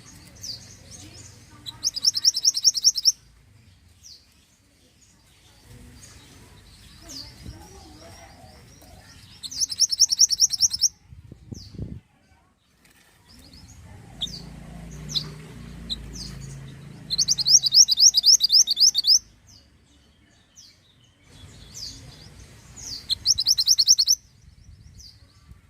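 Small minivet (burung mantenan) singing: four loud bursts of rapid, high-pitched trilling, each a second or two long, with short thin chirps in between.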